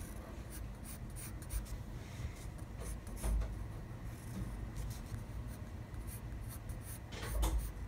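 Graphite pencil scratching on paper in short, irregular strokes as small lines are drawn, with two soft low thumps, one about a third of the way in and one near the end.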